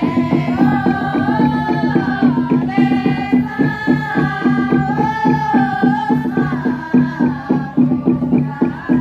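Group of pa'katia dancers chanting a melodic Toraja funeral song together, long held notes that bend slowly up and down, over a fast, steady rhythmic tapping.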